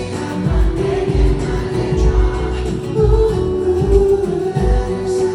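Live pop music played through a venue sound system: a singer's voice over a backing track with a heavy bass beat.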